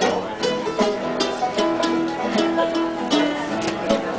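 Acoustic folk band playing an upbeat instrumental break, with strummed guitar on a steady beat under plucked-string lead notes.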